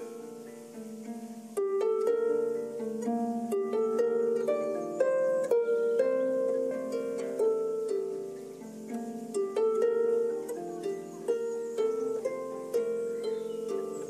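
Solo lever harp plucked in a free improvisation, single notes and chords ringing on and overlapping. The playing grows louder about one and a half seconds in.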